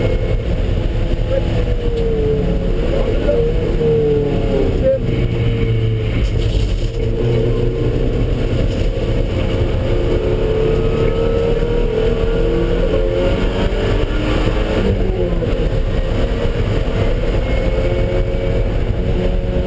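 Car engine under hard driving at track speed, its pitch climbing and dropping again and again with throttle, over a heavy low rumble of road and wind noise.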